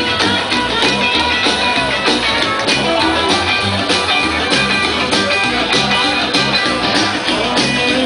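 Live rockabilly band of upright double bass, acoustic guitar, electric guitar and drums playing an instrumental passage with no vocals, a steady bass line and drum beat under the guitars.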